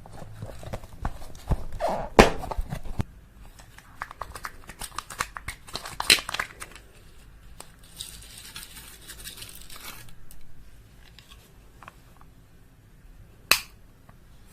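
Slime being squeezed and stretched by hand, sticky crackling with clusters of small popping clicks, and one sharp click near the end.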